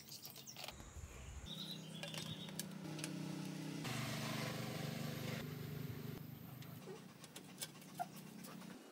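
Light metal clicks and small-parts handling as a chain guard is screwed onto a child's bicycle frame. A steady low hum runs for a few seconds in the middle and is the loudest sound, with a brief bird chirp near the start.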